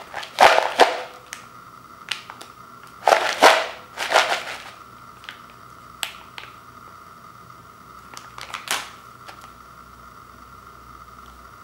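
Handling noise from a crinkly snack bag and a clear plastic bowl of hard pretzel pieces: a few short bursts of crinkling and rattling, with small clicks between them.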